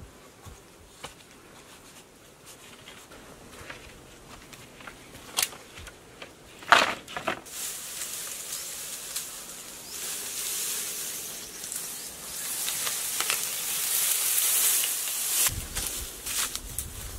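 A few sharp knocks, the loudest about seven seconds in, then a long hiss-like rustle of dry grass being handled and laid over a bamboo frame.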